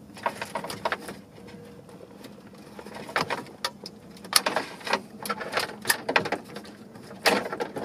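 Wiring plugs being pulled from the back of a Pioneer double-DIN car stereo: irregular clicks and rattles of plastic connectors and wires against the unit's metal chassis, with louder clusters about three, four and seven seconds in.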